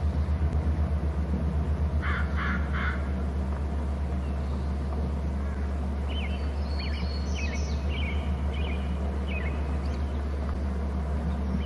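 Crow cawing three times about two seconds in, over a steady low hum. Thin, high chirping bird calls follow from about six seconds on.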